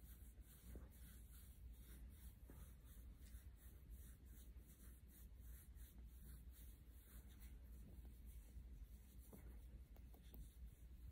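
Near silence with faint, soft rubbing a few times a second: fingers stroking a young puppy's fur close to the microphone.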